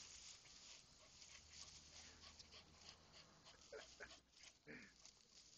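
Faint crackling rustle of dry palm fronds as a dog rolls around in them, with a couple of short dog whines about four seconds in.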